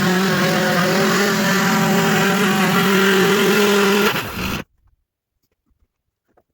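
Chainsaw engine running at high, steady revs, then cutting off abruptly about four and a half seconds in.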